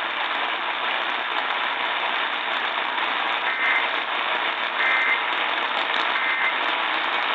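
Steady radio static from a weak, distant NOAA Weather Radio signal. About halfway through, three short bursts of the warbling two-tone SAME digital data signal break through the hiss, each under half a second and about a second apart.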